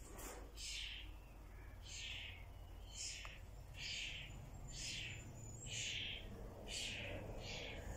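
Short, high-pitched animal calls repeating about once a second, each dropping in pitch.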